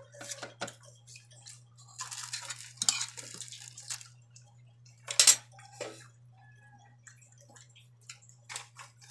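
Cutlery clinking and scraping against a plate during a meal: scattered light clicks, a stretch of rattling about two seconds in, and one louder clatter about five seconds in.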